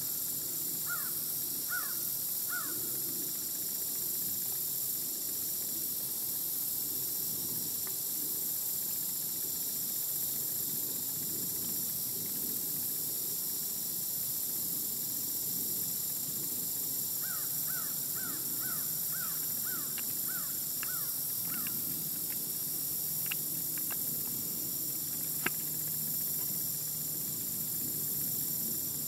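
A bird calling in short repeated notes: a few at the start, then a run of about ten more some seventeen seconds in, over a steady high hiss. A single sharp click near the end.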